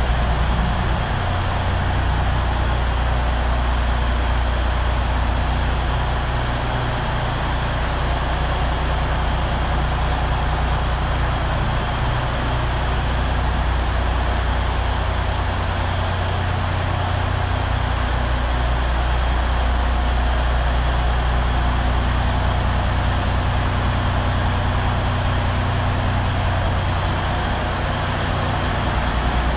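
Heavy-truck diesel engine, a 2010 Western Star 4900's, idling steadily with a deep, even hum.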